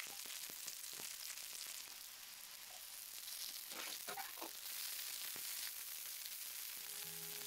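Gnocchi sizzling in hot fat on a flat griddle pan, with a wooden spatula knocking and scraping against the pan as the pieces are turned, most of it about four seconds in.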